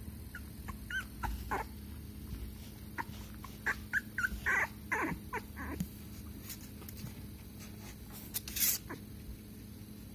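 Young Pomsky puppy whimpering in short, high squeaks, several in quick succession around the middle, with a short scratchy noise near the end.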